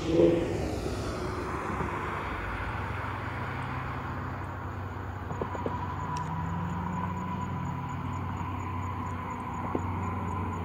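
A car passing close by, loudest just at the start and fading as it moves away, then the low hum of another vehicle approaching in the distance.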